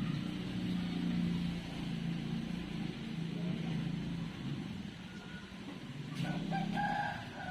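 An engine running with a steady hum that fades about halfway and picks up again near the end, when a brief higher tone is also heard.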